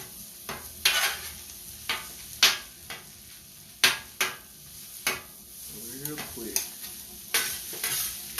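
Fried rice sizzling on a hot cooking surface as a spatula stirs and tosses it, with sharp irregular scrapes and clacks over the steady sizzle.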